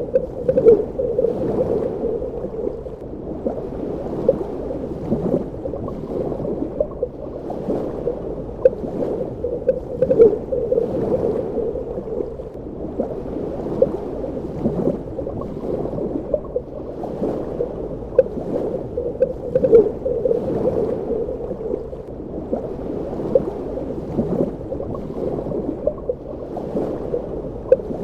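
Underwater ambience: a steady muffled wash of water with frequent short gurgling, bubbling surges.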